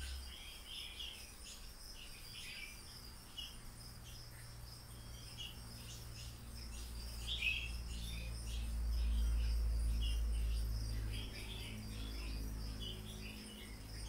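Baby marmosets giving short, high-pitched chirps at irregular intervals over a steady high, insect-like whine and a low hum.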